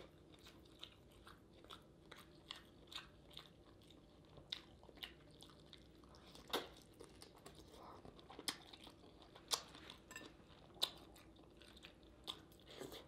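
Faint, close-miked eating sounds: chewing with scattered soft wet mouth clicks and lip smacks at irregular intervals, some a little louder than the rest.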